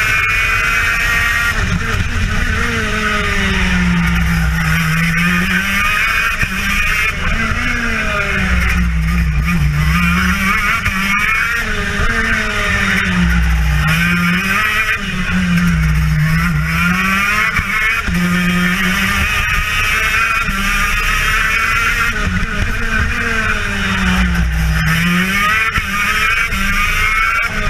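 TM KZ10B two-stroke kart engine at racing speed, its pitch dropping and climbing again every two to three seconds as the kart slows for corners and accelerates out of them.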